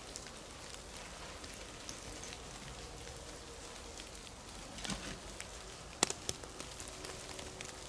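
Wet snow and meltwater dripping from the trees onto the snowy, leaf-covered ground: a faint steady patter of scattered drops, with a few sharper clicks about five and six seconds in.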